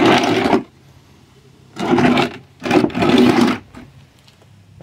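Cordless drill whirring in three short bursts, the last one the longest.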